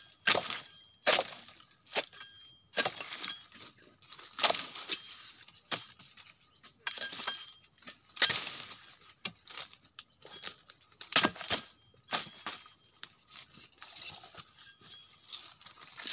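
A long-handled steel chisel striking the hard frond bases of a young oil palm during pruning, with irregular sharp chops about once a second and the crackle of dry fronds. A steady high insect drone runs underneath.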